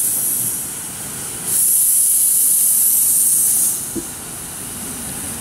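Steam hissing from a 7¼-inch gauge live-steam model of a GWR King class 4-6-0 locomotive. It is a steady high hiss that swells louder for about two seconds from about a second and a half in, then drops back. There is a single click about four seconds in.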